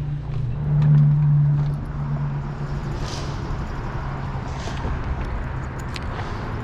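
An engine running steadily at low speed with a low, even hum, briefly louder about a second in, with a few light clicks over it.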